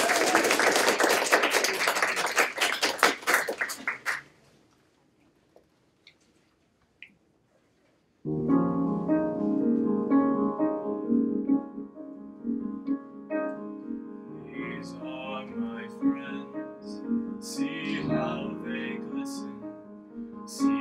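Audience applause that dies away after about four seconds. After a short silence, a piano starts a slow accompaniment, and a baritone voice comes in over it in the last third.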